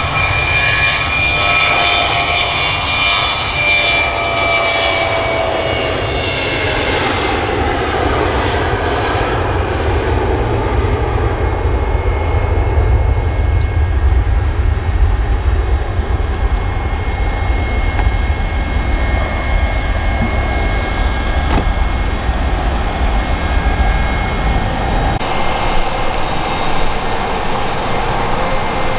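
Boeing 717's Rolls-Royce BR715 jet engines running. A high whine slides down in pitch over the first several seconds and gives way to a steady low roar. About 25 s in, the sound changes to another aircraft's engine noise.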